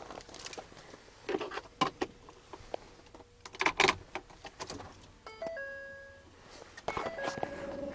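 Keys jangling and a few knocks and clicks, then short stepped electronic chime tones from the truck's dashboard as the ignition is switched on, heard twice, a little past halfway through and again near the end.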